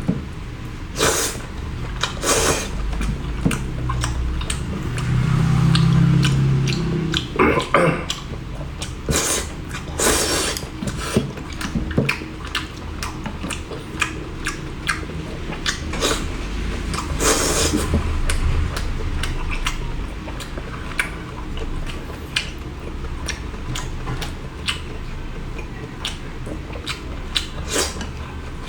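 Person eating seafood: a steady run of sharp cracks, clicks and smacks from shells being broken and food being chewed, with dishes and utensils clattering.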